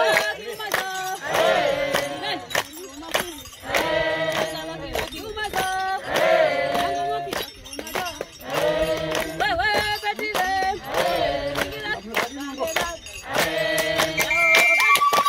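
A group singing a traditional Hehe ngoma song in phrases, with sharp handclaps in between. A high, steady note comes in near the end.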